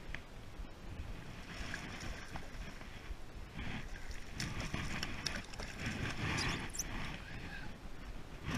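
A hooked snook thrashing and splashing at the water's surface beside a kayak, in several rough bursts through the middle, over wind on the microphone.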